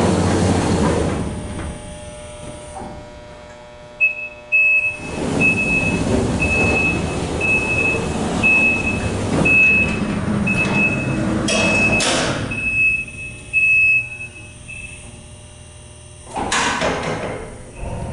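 Dover hydraulic freight elevator car settling at a floor, then its power doors and mesh gate moving while a high-pitched warning beeper sounds about once a second for roughly ten seconds. A louder clatter of the gate comes near the end.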